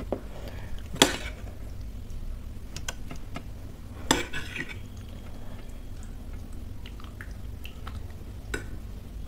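Steel spoon scooping thick curry from a metal bowl: soft scraping with several sharp clinks of spoon on bowl, the loudest about a second in and another about four seconds in.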